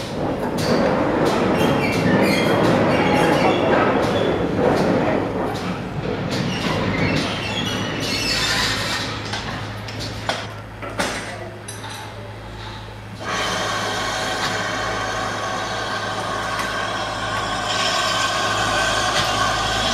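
GWR 2-8-0 tank steam locomotive 4277 drawing into the station with its coaches: a loud rumble of engine and wheels on the rails, full of clicks and clanks, that eases as the train slows. From about two-thirds through, a steadier sound with a low hum and several held higher tones takes over.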